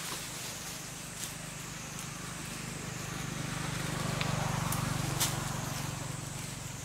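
A low engine hum swells to its loudest about four to five seconds in, then eases. A steady high-pitched hiss runs under it, and there are a few sharp clicks.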